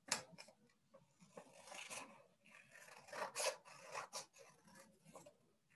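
Scissors cutting through folded paper in a run of faint, irregular snips and paper rustles.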